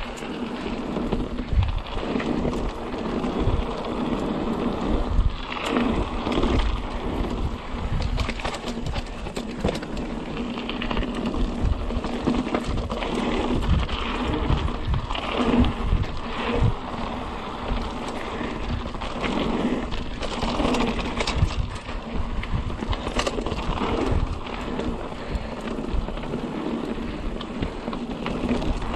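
Mountain bike riding down a dirt trail: wind noise on the microphone and tyre rumble, with the bike rattling and knocking irregularly over bumps.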